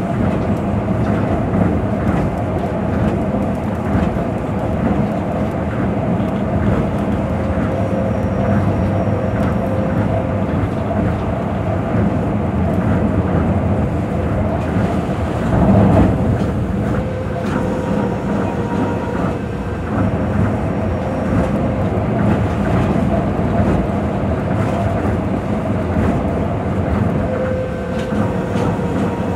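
Tokyo Monorail 2000 series train running at speed, heard from inside the car: a steady rumble of its rubber tyres on the guideway with a faint steady hum, swelling louder for a moment about sixteen seconds in.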